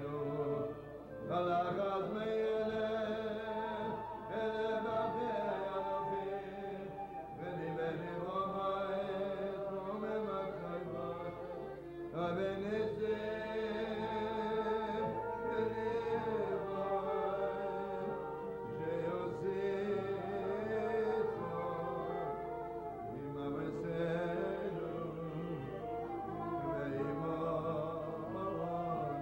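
A man singing a chant-like melody with long held notes, accompanied by an acoustic guitar.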